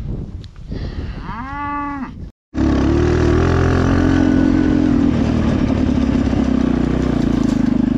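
A short animal call over field noise. Then, after a cut, a small motorcycle's engine running steadily, loud and close, with small changes in pitch as it rides across the pasture.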